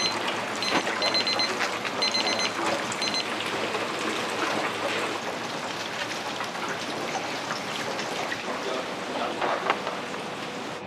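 Commercial kitchen working noise: a steady hiss full of small clicks and clatter. An intermittent high squeal sounds several times in the first three seconds.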